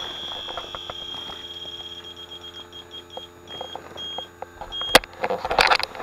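Electronic refrigerant leak detector in full alarm, a steady high-pitched tone showing refrigerant at the evaporator coil leak. After about two seconds the tone breaks into rapid beeps that slow down. Near the end there is a sharp click and a burst of handling noise.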